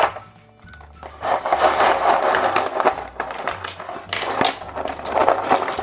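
A hand shuffling a pile of small plastic Play-Doh stamp pieces across a tabletop: a continuous clatter and scrape of plastic on plastic, starting about a second in.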